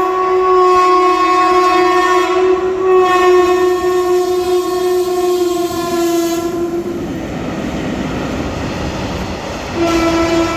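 Indian Railways WAG-5HC electric locomotive's horn sounding one long blast for about seven seconds as it runs through the station, then the rumble of the passing train, then the horn starting again near the end.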